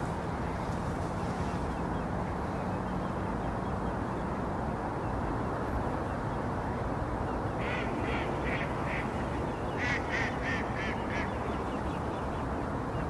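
A duck quacking in two quick runs of short calls, about four calls some eight seconds in and about six more a couple of seconds later, over a steady outdoor background noise.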